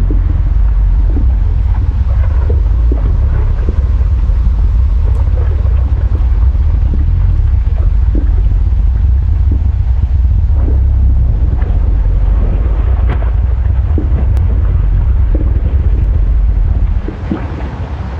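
Volcanic eruption: a loud, deep continuous rumble with scattered crackles and pops over it, dropping in level about seventeen seconds in.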